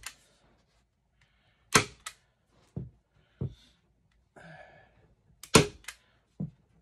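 Hand staple gun firing staples through a beaver hide into a wooden stretching board: two sharp snaps, about two seconds in and again near five and a half seconds, with lighter knocks in between.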